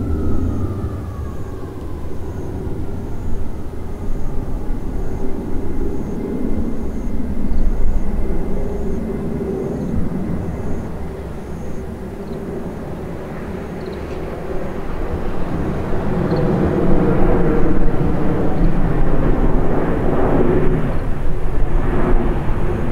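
Boeing 747-400's four jet engines on final approach, flying low overhead: a steady rumble with a whining tone that falls in pitch over the first few seconds, growing louder toward the end as the jet comes over.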